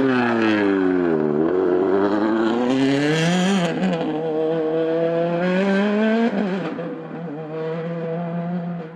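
A World Rally Car's 1.6-litre turbocharged four-cylinder engine being driven hard on a stage. The revs fall off as the car slows, then climb, with sharp drops at gear changes about three and a half and six seconds in. The engine is steadier and quieter near the end.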